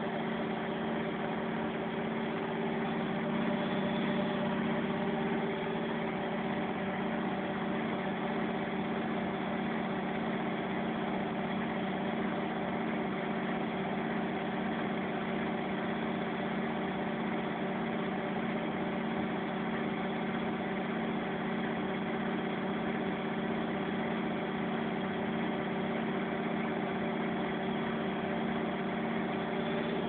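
Arçelik 7103SJ washing machine on its final spin, the drum turning at steady high speed: an even mechanical hum with several steady tones that hold the same pitch throughout.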